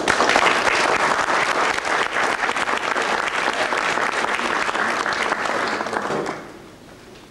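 Audience applauding for about six seconds, then dying away near the end.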